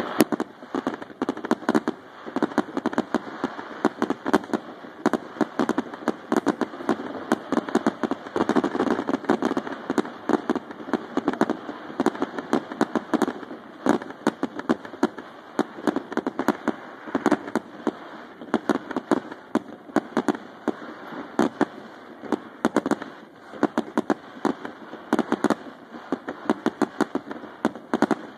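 Aerial fireworks display in a dense barrage: many shells bursting in rapid succession, sharp bangs several times a second over a continuous rumble and crackle.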